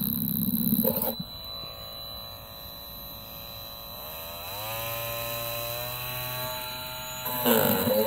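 Parkside cordless oscillating multi-tool with a scraper blade, buzzing as it scrapes flaking paint off a wooden board. After about a second it runs more quietly off the work, and about four seconds in its pitch climbs and then holds as the speed is turned up. Near the end the blade bites into the paint again, louder, with its pitch wavering under the load.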